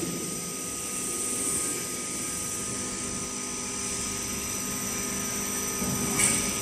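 Root-vegetable brush washing and peeling machine running: a steady mechanical whir with a constant hum.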